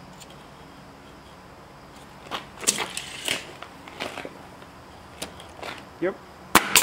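Pneumatic coil nailer firing into a wooden board near the end: two sharp cracks in quick succession as a nail is driven.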